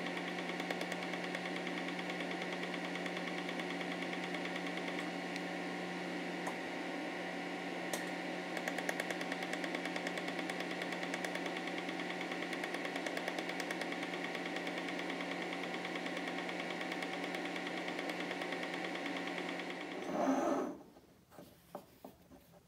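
Laser welding machine running with a steady hum, and from about a third of the way in a fast, regular pulsing as the laser fires on the steel watch case lug. The hum stops just before the end, and a few light handling clicks follow.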